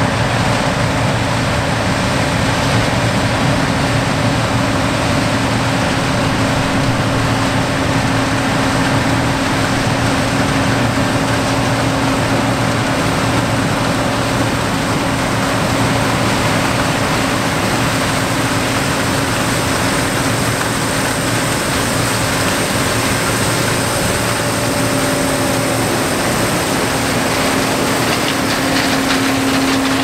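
John Deere 8820 Titan II combine harvesting corn with its eight-row 843 corn head: the engine and threshing machinery run steadily with an even drone and a low hum.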